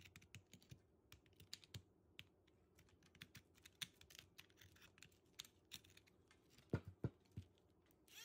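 Faint, irregular light clicks and taps from a fossil shell rock being handled on a work mat, with two louder knocks about seven seconds in. The rotary tool's motor is not running.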